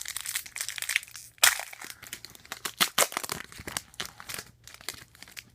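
Foil trading-card pack wrapper being torn open and crinkled, with cards rustling against it: a run of irregular crackles, the sharpest about a second and a half in and again about three seconds in.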